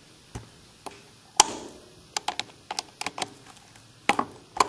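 Sharp metallic clicks and taps of needle-nose pliers gripping and working an old cotter pin out of an edger's blade nut, coming in irregular clusters, the loudest about a second and a half in.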